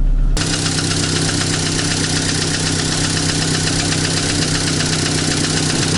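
Chevrolet Cruze engine idling steadily with a fast, even knocking. This is piston slap from a cylinder whose piston skirt has partly broken off.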